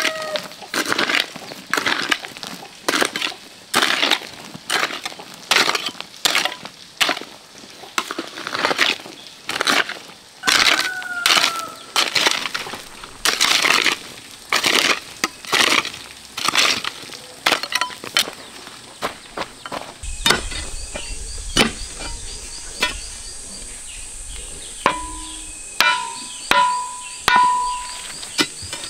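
A garden hoe chopping and scraping into dry, stony dirt, about one strike a second. In the last several seconds the strikes thin out under a steady high insect drone.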